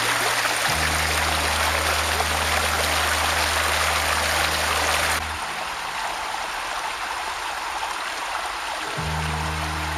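Shallow stream water rushing over rocks right at the microphone. It is loud for the first five seconds or so, then turns softer and duller.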